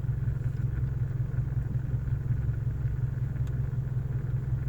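A steady low droning hum with no pauses.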